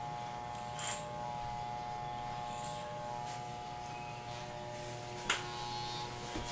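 Corded electric hair clippers running with a steady hum as they cut hair, with a sharp click about five seconds in.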